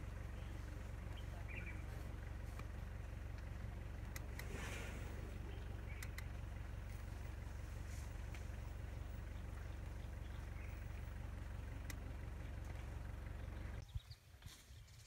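Vehicle engine idling with a steady low hum, with a few faint bird chirps and a brief rustle about four and a half seconds in. Near the end the hum stops abruptly and quieter, irregular low sounds follow.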